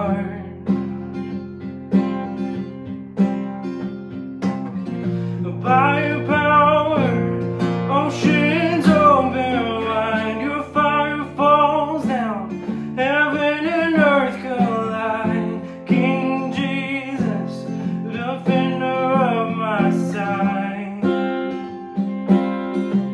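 A man singing a worship song over a strummed acoustic guitar. His voice comes in phrases of a few seconds with short breaks, while the guitar chords carry on underneath.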